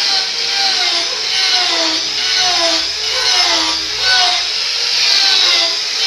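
Power saw cutting wood, its whine dipping in pitch and recovering about once a second over a steady high hiss.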